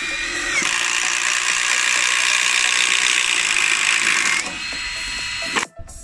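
Cordless drill running an auger wood bit into a plank, with a steady motor whine. The sound grows louder and rougher for about four seconds while the bit cuts, eases back, and cuts off suddenly near the end.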